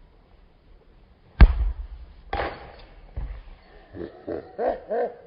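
A football kicked hard from the penalty spot on grass: one sharp, loud boot-on-ball thump about a second and a half in, then a second hit about a second later and a duller thud as the ball strikes something at the goal. Near the end, a man laughing in short repeated pulses.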